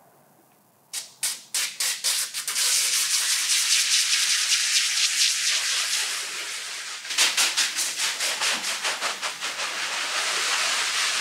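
Sprayer wand misting slip solution under paint protection film as it is lifted off its liner to float it. The spray starts with rapid sputtering spurts about a second in and runs steadily, then sputters again about seven seconds in and runs steadily until it stops.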